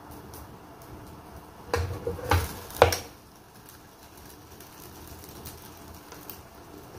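Hinged metal lid of an electric tortilla press being lowered and pressed down onto dough balls: a few clacks and a short falling squeak about two to three seconds in, then only low background hum.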